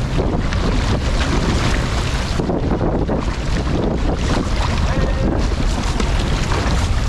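Wind buffeting the camera microphone over water rushing and splashing along the hull and paddles of a six-man outrigger canoe under way.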